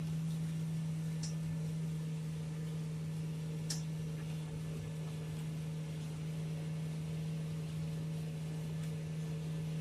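Tractor engine running at a steady speed under the load of a hay mower, heard from inside the cab as an even drone.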